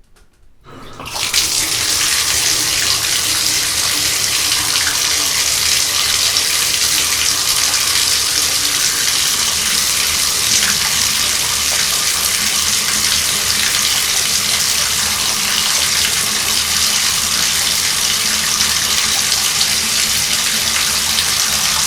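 Bathtub faucet turned on: the water starts faintly and within about a second and a half comes up to a full, steady stream running into the tub.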